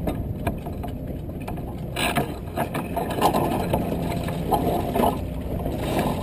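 Irregular clicking and ratcheting of a sailboat's deck gear over a rush of water and wind. The rush grows louder about two seconds in.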